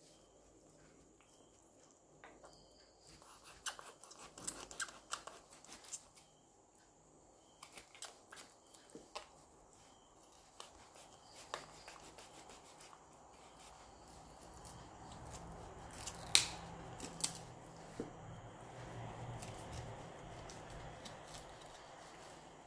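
Small knife cutting into a raw whole chicken on a wooden board: irregular clicks and crackles as the blade cuts through skin, cartilage and joints. One sharp crack about 16 seconds in is the loudest.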